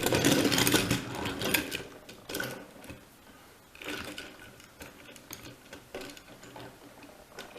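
Battery-powered TrackMaster toy train engine's small electric motor and gears whirring, loudest for the first second or two and then dying away. Light clicks follow as the toy is handled.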